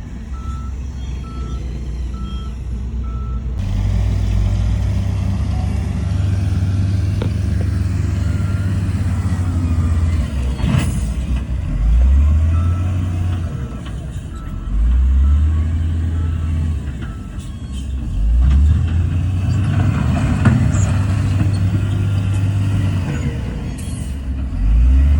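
Diesel engines of heavy earthmoving machinery running, one engine revving up sharply four times. A reversing beeper sounds in steady beeps, about two a second, early on and again in the middle.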